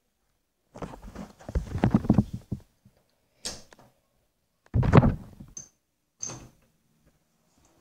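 Interior door handled at its brass knob: rustling and knocking, a sharp latch click, then a heavy door thunk, the loudest sound, with a smaller knock after it.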